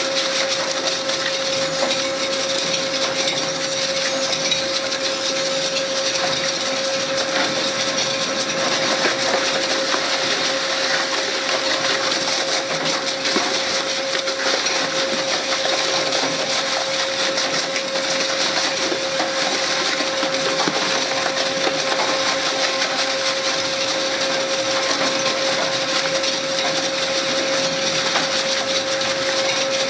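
Twin-shaft shredder's cutter discs chewing through rubber tyres: a steady grinding with a constant motor whine and many small crunches.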